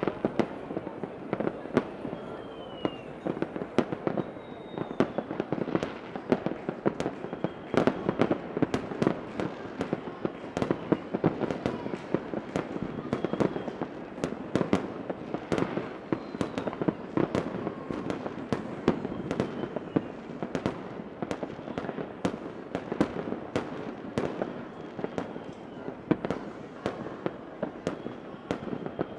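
Fireworks going off without a break: a dense run of sharp bangs and crackles over a steady rumble, with a few faint whistles.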